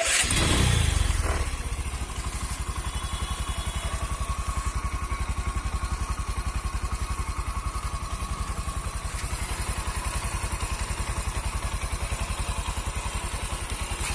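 Bajaj Discover 100's single-cylinder four-stroke engine starting on its first run after a top-end rebuild for lost compression: it catches at once, runs louder for about the first second and a half, then settles into a steady, even idle.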